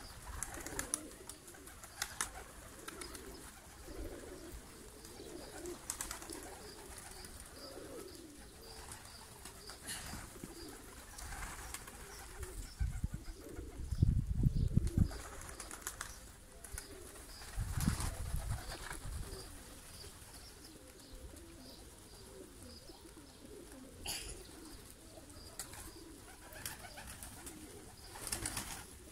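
Domestic pigeons cooing, a low wavering warble that runs on and off throughout, with scattered sharp clicks. Two louder, low bursts of noise come about halfway through.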